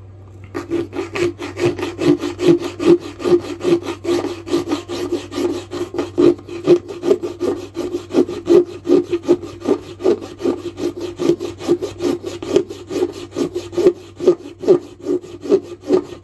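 A 4-in-1 hand rasp filing a small wooden handle in quick, even back-and-forth strokes, about three a second. It is knocking the corners off to round the handle.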